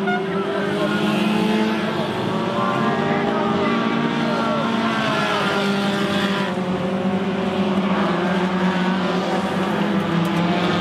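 Several small hatchback stock cars racing on a dirt oval, engines revving up and down in overlapping notes as they pass.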